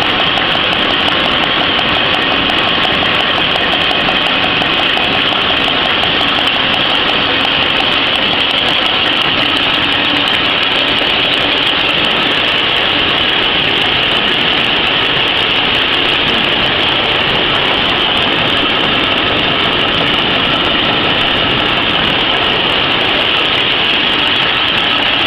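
PCMC napkin converting machine running steadily: its electric drive motor, belts and rollers give a loud, unbroken mechanical din with a strong high hiss.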